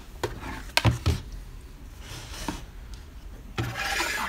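Hard plastic pistol case handled on a wooden table: a few sharp knocks and clicks, then a scraping slide near the end.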